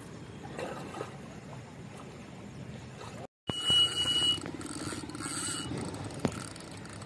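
Low outdoor background, then after a cut a spinning fishing reel's drag ratcheting with a steady high squeal as line is pulled off the spool.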